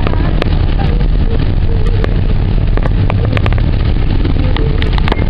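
Car cabin noise while driving in heavy rain: a steady low road and engine rumble, with irregular sharp ticks of raindrops hitting the windshield.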